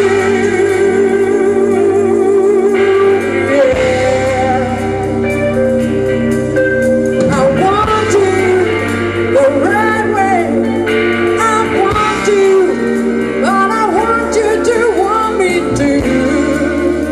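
A live band playing a jazzy pop song, with drums and electric guitar, while a woman sings lead into a microphone. Her voice slides up and down through the phrases from about halfway through.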